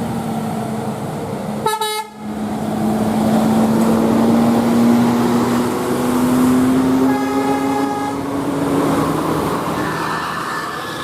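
Bus telolet musical horn sounding over the running bus: a short blast about two seconds in and a held note about seven seconds in, above a steady drone that rises slowly in pitch.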